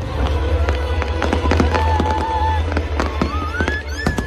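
Fireworks going off in quick succession, a dense run of bangs and crackles, over loud music with a heavy, steady bass.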